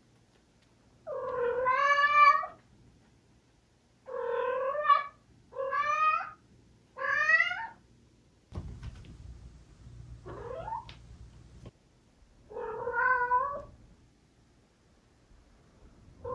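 Tabby cat meowing at a closed sliding door: about six drawn-out meows, the first the longest, one of them faint and rising in pitch. Between the meows there is a few seconds of quieter scuffling.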